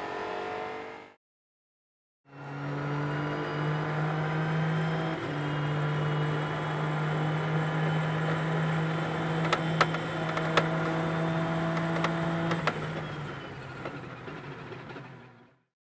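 An engine drone holding a steady pitch after a brief silence, with a few sharp clicks partway through; it fades out near the end.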